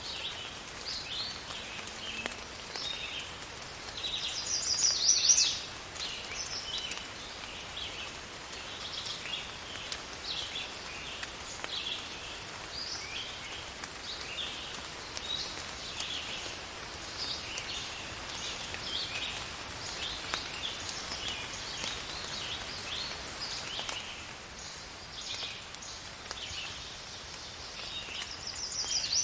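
Outdoor nature soundscape of many short bird chirps over a faint steady hiss of rain. A louder rapid trill swells up and cuts off about four seconds in, and again at the end.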